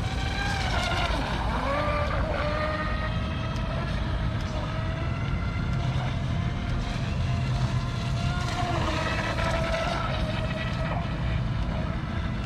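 Electric RC F1 speedboat's Tenshock brushless motor whining as the boat runs on the water, its pitch rising and falling with the throttle, over a steady low rumble.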